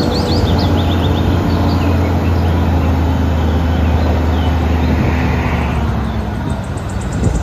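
Diesel engine of an eight-wheel tipper truck running steadily with a deep hum, driving the hydraulics as the tipper body is raised. Birds chirp faintly near the start.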